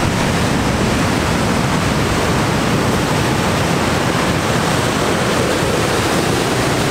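Heavy ocean surf breaking on rocks, with wind on the microphone: a loud, steady rushing roar.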